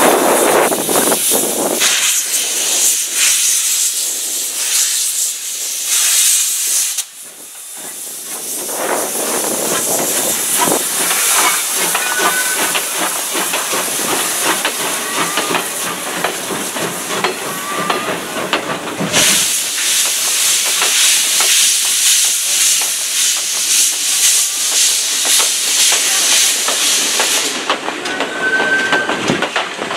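Steam locomotive C11 190, a JNR Class C11 tank engine, hissing steam as it pulls out with its train. Near the end its passenger coaches roll past.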